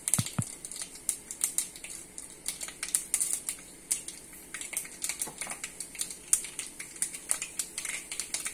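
Mustard and fenugreek seeds crackling in hot sesame oil, an irregular run of sharp pops several times a second: the tempering stage, with the oil hot enough for the mustard to splutter. A couple of dull knocks come right at the start.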